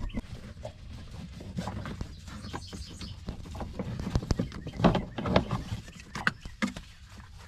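Irregular knocks, clicks and clanks of hands unhooking and handling a Kawasaki Tecate 4 engine, over a low steady background hum.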